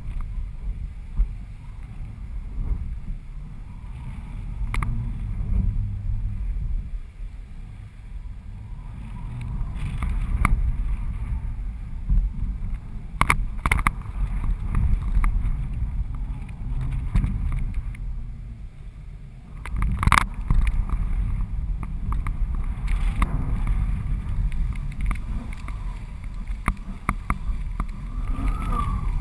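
Wind rushing over a GoPro camera strapped to the strut of a flying 14 m Switchblade kite: a heavy low rumble that swells and fades with the gusts. Sharp cracks stand out a handful of times, loudest about twenty seconds in.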